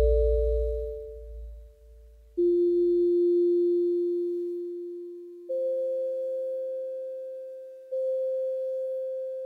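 Electronic sine tones, each note starting abruptly and fading slowly like a struck tuning fork. A low rumble dies away over the first few seconds, then new notes sound about two and a half, five and a half and eight seconds in, the older note still ringing under each.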